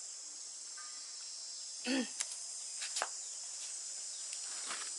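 Steady, high-pitched drone of insects in the background, with a short voice sound about two seconds in and a few faint clicks.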